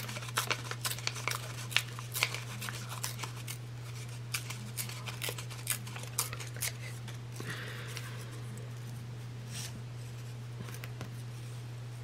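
A strip of fabric being torn by hand: a quick run of crackling rips for the first several seconds, thinning out to a few scattered clicks, over a steady low hum.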